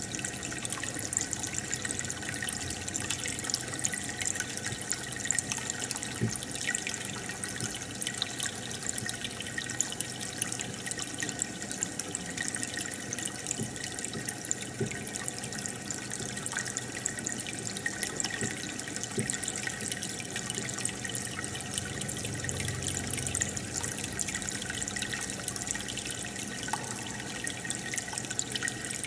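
Aquarium air bubbler and filter: water bubbling and trickling steadily, with many small pops and drips.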